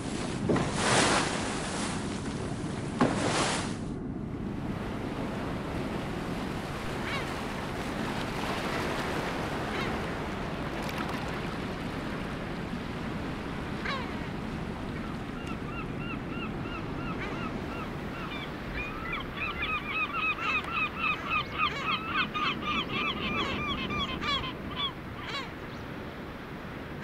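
Waves and wind on the open sea with seabirds calling. About halfway through, a long run of quick, repeated nasal calls begins, louder toward the end, over the steady wash of the water.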